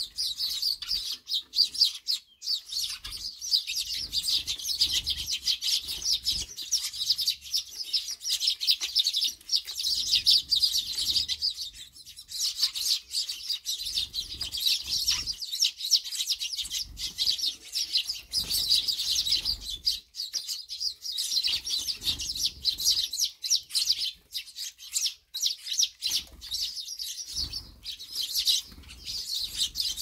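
A flock of Eurasian tree sparrows chirping constantly in a dense, overlapping chatter at a seed feeder, with wing flutters as birds fly in and out.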